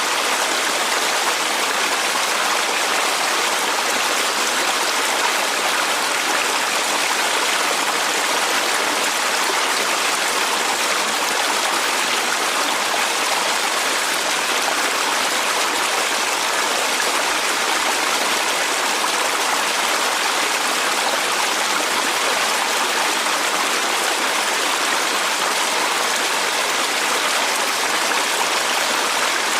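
Waterfall sound effect: a steady, unbroken rush of falling water that holds the same level throughout.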